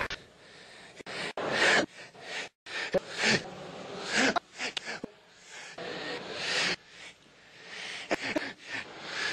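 Breathy human vocal sounds in short, irregular bursts, like gasps and heavy breaths, without clear words.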